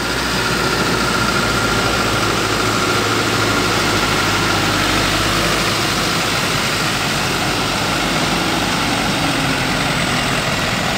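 Hino Dutro 4x4 truck's diesel engine running steadily under load, towing a fully loaded truck of about 7 to 8 tons through mud. A faint steady whine sits over the engine for the first half.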